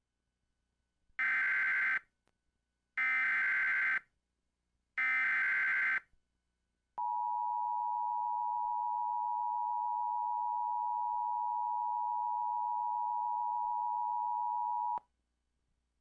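Emergency Alert System SAME header: three short bursts of screeching digital data tones, about a second each, then the two-tone EAS attention signal held steady for about eight seconds before cutting off suddenly. Together they open a severe thunderstorm warning.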